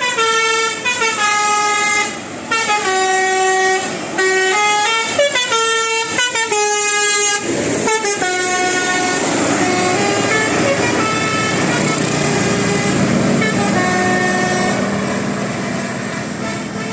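Bus's Basuri musical horn playing a tune of short, stepped notes for about eight seconds. It then gives way to the rumbling noise of the passing bus, with a few more horn notes held over it.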